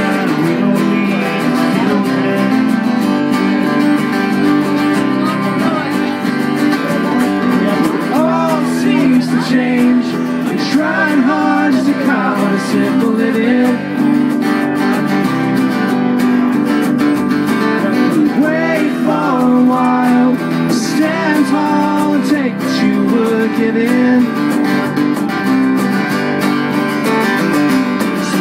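A live acoustic band: strummed acoustic guitars over a bass guitar, with men singing.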